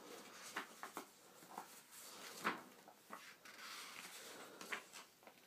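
Faint rustling and soft taps of a paper picture book's pages being handled and turned.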